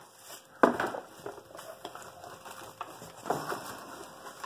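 Plastic detergent bottles and packaging handled inside a cardboard box: a sharp knock just over half a second in, then rustling and light clatter.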